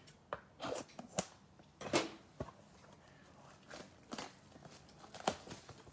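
Cardboard trading-card blaster box being handled: a scattered series of light taps and rustles as it is picked up and turned in the hands.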